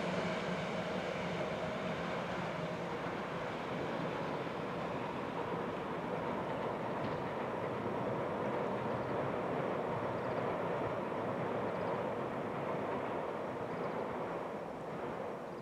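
Tobu 100 series Spacia electric express train running along the line, a steady rumble of wheels on rails that eases off near the end as the train moves away.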